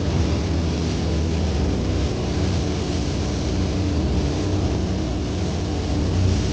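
An engine running steadily, with a low, even drone.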